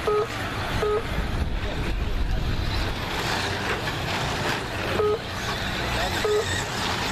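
2WD short-course RC trucks racing on a dirt track, with a steady mix of motor and tyre noise. Four short electronic beeps, typical of a lap-timing system counting cars as they cross the line: two close together at the start and two more about five and six seconds in.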